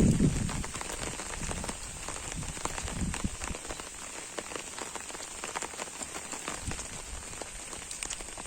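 Steady rain falling on an umbrella, with many separate drops ticking sharply against it over a soft hiss.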